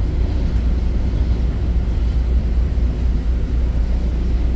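Steady low rumble of train running noise, heard inside a moving commuter rail coach.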